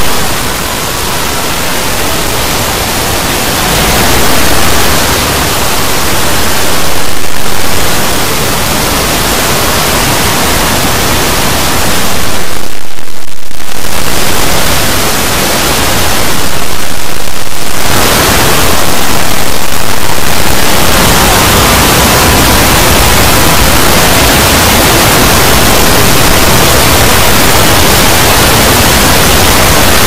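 Loud, distorted wall of noise like static, made by dozens of video soundtracks layered on top of one another into a dense din with no sound standing out. It thins briefly a few times, most clearly about 13 seconds in.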